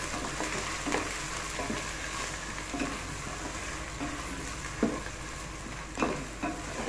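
Ginger-garlic paste and fried sliced onions sizzling in hot oil and ghee in a metal pot as they are stirred and sautéed to cook off the paste's raw smell. A few louder scrapes of the stirring utensil against the pot come about a second in and near the end.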